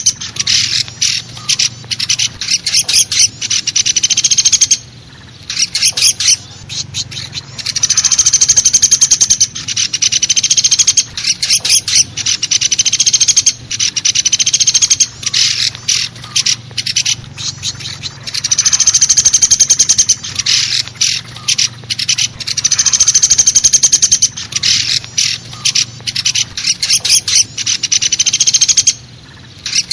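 Woodpecker (pelatuk besi) lure call: loud, fast rattling series of sharp high notes, each run lasting a couple of seconds, repeated over and over with short gaps. A faint steady low hum lies underneath.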